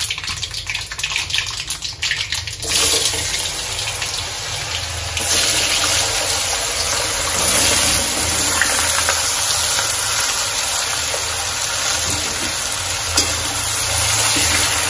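Mustard seeds and urad dal crackling in hot oil in an iron kadai, then a sudden loud sizzle about three seconds in as handfuls of cut raw potato go into the oil. The sizzle stays steady and loud, swelling a little as more potato is added.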